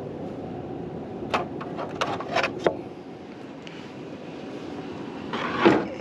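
Several sharp clicks and knocks about a second in, then a louder scraping rustle near the end, over a steady low rumble: handling noise from someone moving about in an attic.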